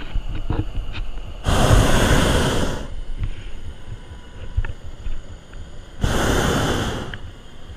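Hot-air balloon's propane burner firing in two blasts of about a second each, roughly four seconds apart, each a loud steady roar.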